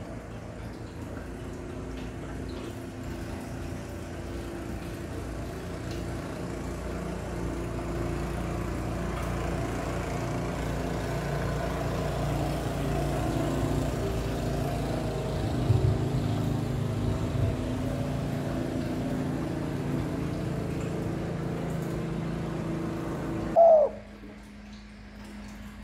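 Spotted dove cooing once, loudly, near the end. Before it, a steady low hum of several tones slowly grows louder, then cuts off just as the coo begins.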